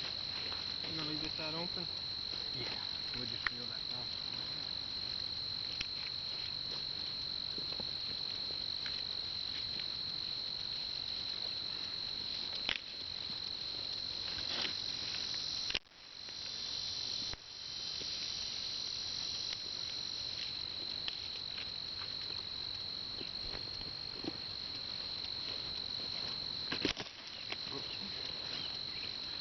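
Insects, crickets by the sound, chirring in one steady high-pitched drone, with scattered faint rustles and snaps of brush being handled. The drone drops out briefly about halfway through.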